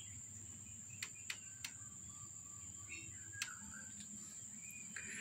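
Faint ambience: a steady high-pitched insect drone, with a few light clicks and some faint high chirps.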